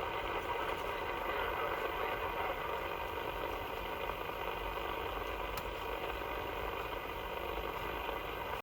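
CB radio receiver hissing with steady band static between transmissions, with one faint click about halfway through.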